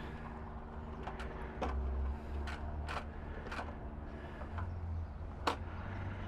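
Motorcycle engine idling steadily, with several short sharp clicks and knocks on top; the loudest knock comes about five and a half seconds in.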